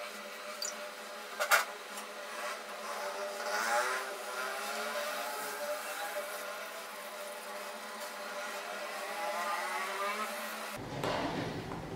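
Toothbrush scrubbing a soapy laptop motherboard: a steady wet, rasping brushing, with one sharp click about a second and a half in. Near the end the sound changes abruptly and a deeper rumble comes in.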